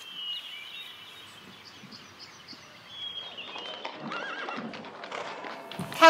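A horse whinnying faintly from about three and a half seconds in, over a quiet ambience with a few thin high tones earlier on.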